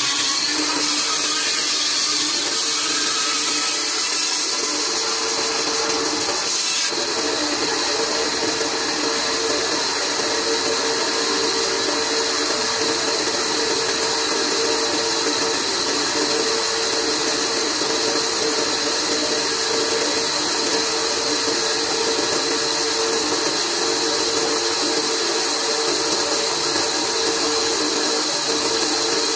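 Large old vertical band saw running steadily, a constant hum with a strong high hiss; it is slightly louder for the first seven seconds, while a plank is fed through the blade, then runs on evenly.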